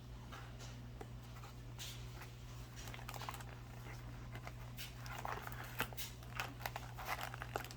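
Faint handling noises from a sealed card booster box being gently worked by hand: scattered light clicks and short rustles, a few sharper ones near the end, over a steady low hum.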